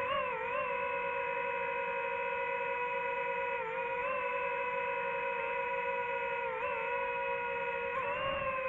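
DJI FPV drone's motors and propellers whining at a steady pitch, dipping briefly twice and rising just before the end as the throttle changes.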